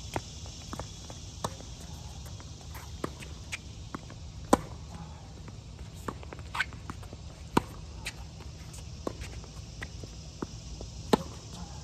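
Tennis rally of racket-on-ball strikes and ball bounces on a hard court. The loudest pops come roughly every three seconds from the near player's groundstrokes, with fainter hits and bounces between them from the far end. A steady high drone of insects runs underneath.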